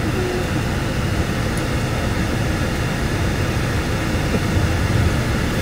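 Steady low rumble with an even hiss over it, the sound of a running vehicle.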